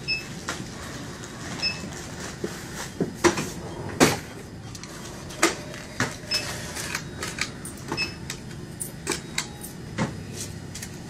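Checkout register at work during a cash payment: a few short high electronic beeps at irregular intervals, mixed with sharp clicks and knocks at the counter, the loudest about four seconds in.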